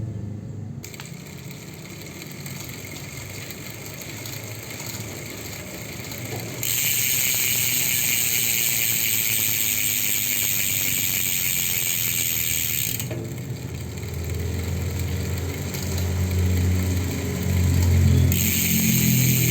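Mountain bike rear hub's ratchet buzzing as the wheel freewheels while coasting. It comes in two stretches, from about a third of the way in to about two thirds, and again near the end, with a low rumble between them.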